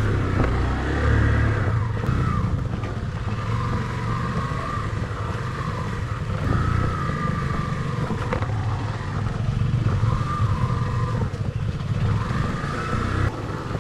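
Motorcycle engine running as the bike is ridden over a rough off-road track, its pitch rising and falling with the throttle.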